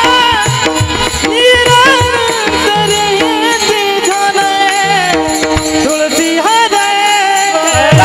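Marathi kirtan devotional song (panchapadi): a solo singing voice over sustained accompaniment, with hand-drum strikes and jingling cymbals. The drum strikes are frequent in the first couple of seconds, then sparser.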